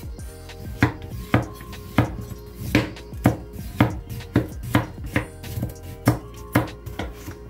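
Chef's knife slicing a daikon radish into rounds on a bamboo cutting board, each cut landing as a sharp knock about twice a second from about a second in. Background music plays underneath.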